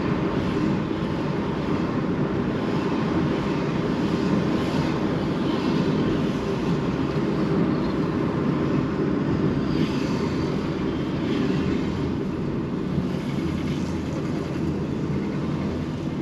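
A car driving steadily along a road, its engine and tyre noise running evenly.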